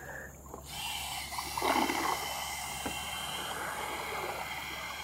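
Cordless drill spinning a homemade kayak propeller on a long rod, a steady motor whine over the hiss of churned water, starting suddenly about a second in, with a brief louder swell near two seconds.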